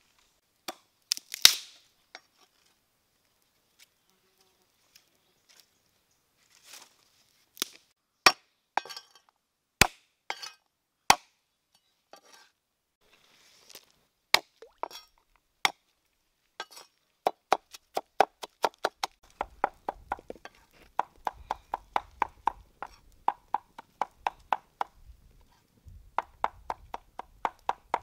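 Knife chopping on a wooden chopping board: scattered single chops at first, then from a little past halfway a fast, even run of about four chops a second.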